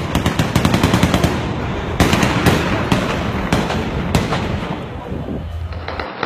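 Heavy automatic gunfire: a rapid burst of about ten shots a second, then scattered single shots and short bursts.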